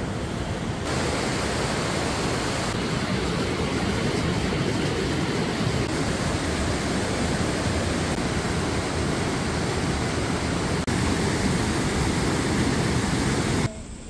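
Steady rush of Yongchu Falls, a waterfall pouring through a rock gorge into a pool. It cuts off abruptly near the end.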